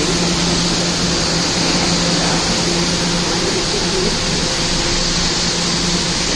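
R211A subway car standing at a station with its doors open, its ventilation and on-board equipment running in a steady hiss over a constant low hum.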